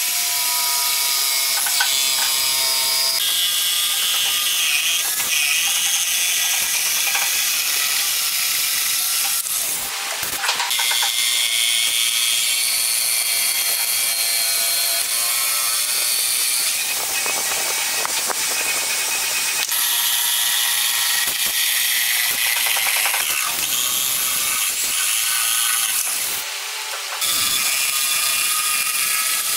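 Bosch corded jigsaw running and cutting a curved line through a thick pine board, with two short breaks, about ten seconds in and a few seconds before the end.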